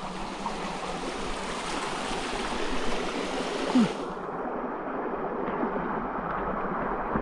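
Running water, a steady rushing. About four seconds in, its hiss drops away abruptly and it goes on duller, just after a brief low knock.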